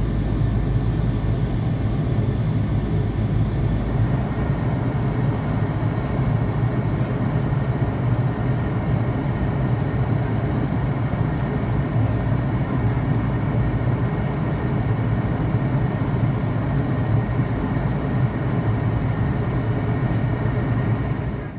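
Jet engines of an Airbus A330-300 airliner at takeoff, a steady low rumble that cuts off suddenly at the end.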